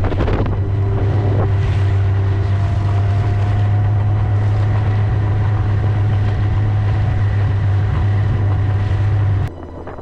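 Snowmobile engine running at a steady cruising drone while riding, with wind buffeting the microphone. The sound drops off abruptly about nine and a half seconds in.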